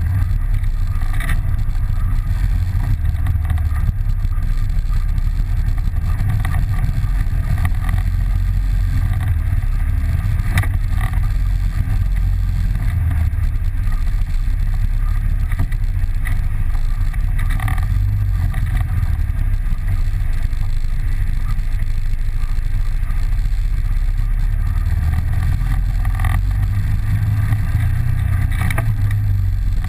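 ATV engine running steadily on a rough trail, heard as a constant low rumble through a mounted action camera, with a few sharp knocks as the machine jolts over rocks.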